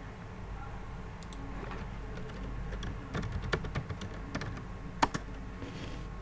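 Computer keyboard typing a short word: a quick run of key clicks, with one louder click about five seconds in, over a steady low hum.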